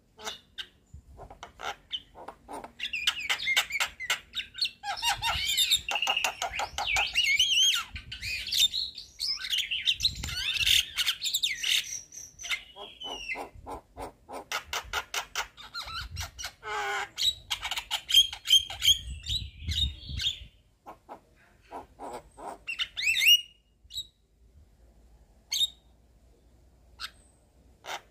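Javan myna singing its chattering song: long runs of rapid rattling clicks mixed with squeaky whistles that slide up and down, in three bursts, thinning to a few single calls over the last few seconds.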